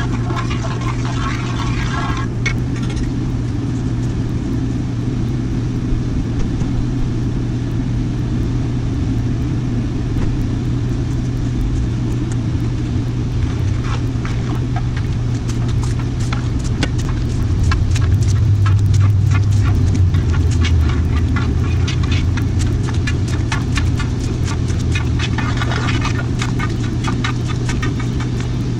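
Propane burner running steadily with a low roar under a cast iron wok of boiling water, louder for a few seconds around the middle. From about halfway there are many short clicks and scrapes of a metal ladle against the iron wok.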